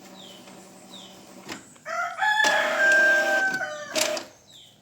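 A rooster crows once, loud, for about two seconds starting about two seconds in: it rises, holds a long tone and falls away at the end. A faint steady hum sits under the first part.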